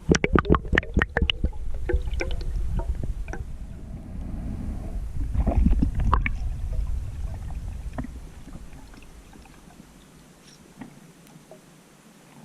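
Water splashing and bubbling with a low rumble. It starts suddenly with a rapid run of sharp clicks and splashes, swells again about halfway through, then fades to faint scattered ticks.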